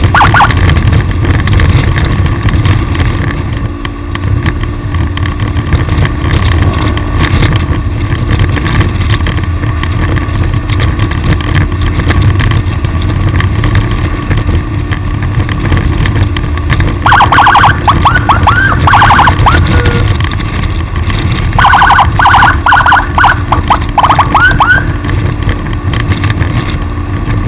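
Steady wind and road rumble of a vehicle travelling at speed, broken twice by bursts of a rapidly repeating rising electronic chirp, a siren-type warning sound.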